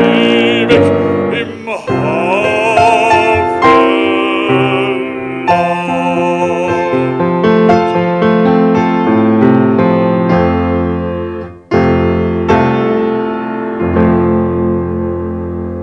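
Bösendorfer grand piano playing the closing bars of a song accompaniment, with a baritone singing held notes with vibrato over it in the first few seconds. The piano then plays on alone and ends in chords that slowly fade.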